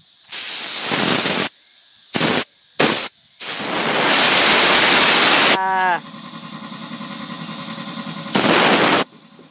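Water hissing out of a hose's trigger spray nozzle as it is squeezed on and off in bursts: a spray of about a second, two short squirts, a longer spray of about two seconds, and one more short burst near the end.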